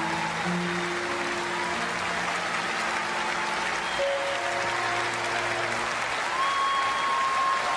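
Audience applauding, with the music's last held notes sounding underneath.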